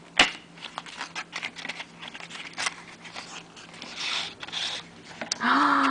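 Cardboard fountain-pen box being handled and opened: a sharp click a fraction of a second in, then light clicks, taps and scraping of the cardboard sliding apart. A brief voiced sound near the end.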